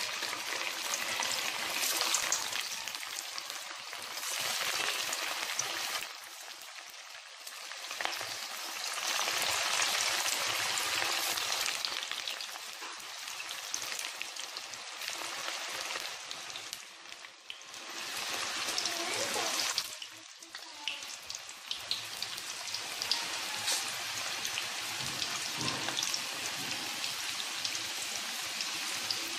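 Mutton kofta (minced-meat balls) deep-frying in hot oil: a dense, crackling sizzle that swells and fades in loudness several times.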